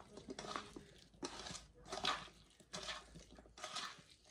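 A hand squishing and mixing boiled potato and cucumber achar (Nepali pickle) in a metal bowl, in short repeated strokes about two a second.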